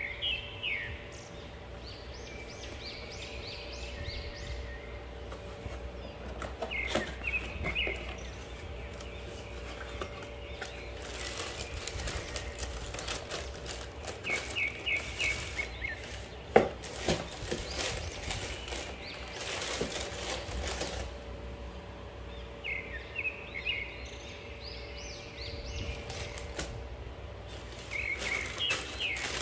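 Small birds chirping in short bursts every few seconds over a faint steady hum. Crackling rustle of tissue paper and the cardboard shoe box being handled through the middle stretch.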